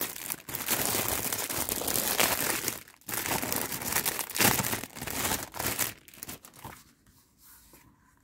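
Plastic gift wrap crinkling and rustling as a present is unwrapped by hand, in two long stretches with a brief pause about three seconds in; it dies down near the end.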